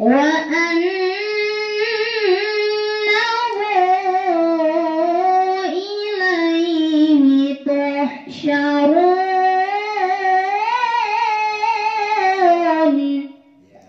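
A woman reciting the Quran in the melodic tilawah style into a microphone. She holds long, ornamented notes with turns of pitch, breaks briefly about eight seconds in, then carries the phrase on and ends just before the close.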